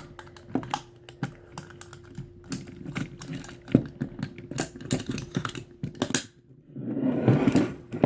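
Plastic Dragonzord toy being handled: a run of small clicks and taps as its leg and ankle joints are moved into place, with a brief rubbing rustle about seven seconds in.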